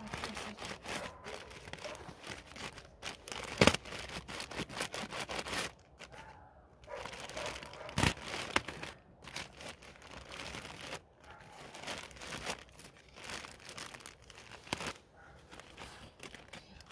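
A plastic bag being handled and pulled open, crinkling and rustling irregularly, with two sharper snaps about four and eight seconds in.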